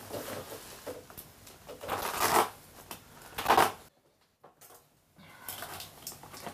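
Plastic mailer envelope rustling and crackling as it is handled and opened, in a few short bursts with the two loudest in the first half. About a second of dead silence falls in the middle.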